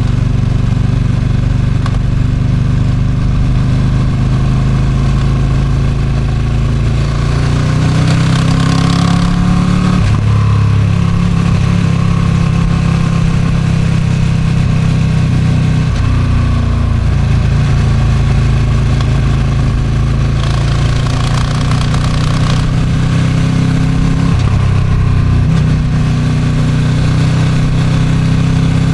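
Ducati Streetfighter V2's 955 cc L-twin engine with stock exhaust, heard from the moving bike on an expressway. The engine note climbs and drops back a few times as the rider accelerates and eases off, with wind noise on the microphone underneath.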